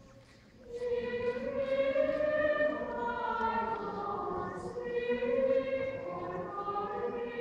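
Choir singing a slow liturgical chant with long held notes in a large church. The singing resumes after a brief pause at the very start.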